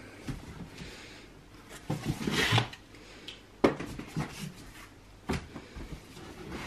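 Pushchair parts and packaging being handled inside a large cardboard box: rustling and scraping, with a longer rustle about two seconds in and a couple of sharp knocks later on.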